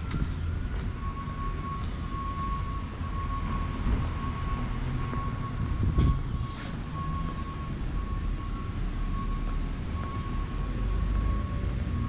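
City traffic rumble with a steady high-pitched whine running through it and a single knock about six seconds in.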